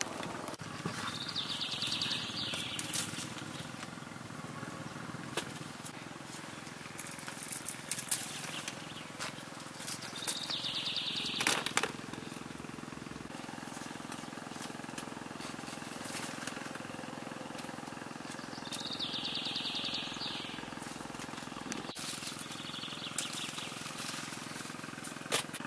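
Cucumber vines and leaves rustling, with scattered sharp snaps and clicks as cucumbers are picked by hand. A short, high trill sounds four times, each about a second long.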